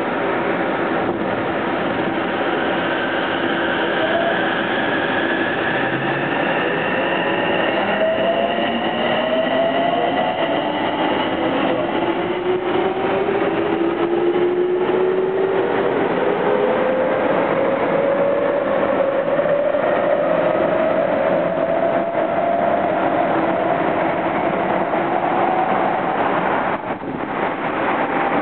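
Tsukuba Express TX-1000 series electric train under way, heard from inside the car: the Toshiba VVVF inverter whine climbs steadily in pitch as the train accelerates, over the rumble of wheels on the rails.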